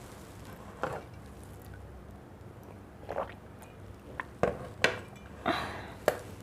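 Close-up eating sounds of a person eating fish curry with rice: scattered short, wet, squishy mouth and chewing noises with a few sharp clicks, coming more often and louder in the second half.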